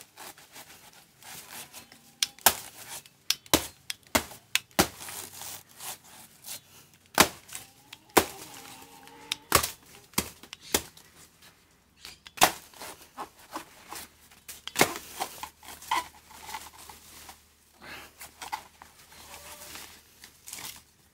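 Machete chopping into a banana plant's soft, fibrous trunk to cut it down: irregular sharp strikes, a few much louder than the rest.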